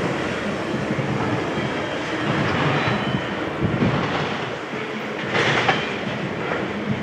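Freight cars of an intermodal container train rolling past, the steel wheels rumbling and clattering over the rails, with a few louder knocks about five and a half seconds in.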